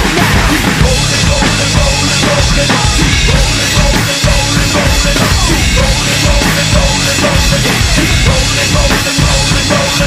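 Acoustic drum kit played live along to a nu-metal backing track: a driving rock beat of kick drum, snare and cymbals over the song's guitars and bass.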